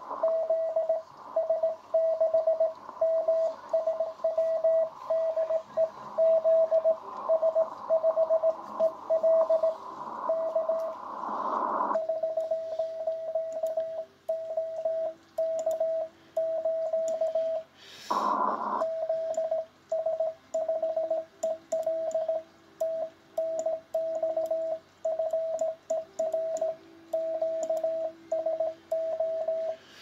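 Morse code (CW) on a ham radio transceiver: a single steady tone keyed on and off in rapid dots and dashes. For the first twelve seconds or so it sits in band hiss, after which it sounds clean; a short burst of noise comes about 18 seconds in.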